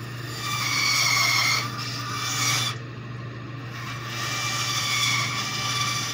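Bandsaw blade cutting a small wood blank: a rasping cut from about half a second to nearly three seconds in, then a second cut starting about four seconds in, over a steady hum.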